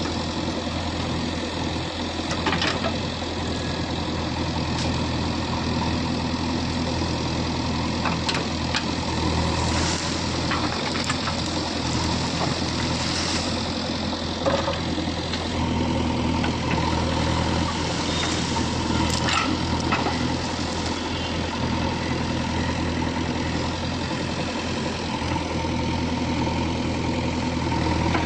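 Diesel engine of an earthmoving machine running steadily, with a few short clanks along the way.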